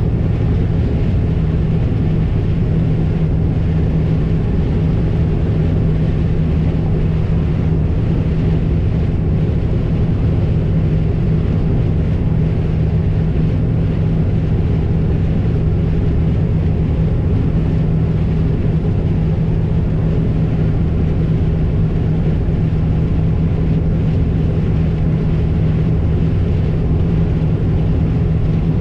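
Heavy farm vehicle engine running steadily at constant speed, an unbroken drone with a strong low hum.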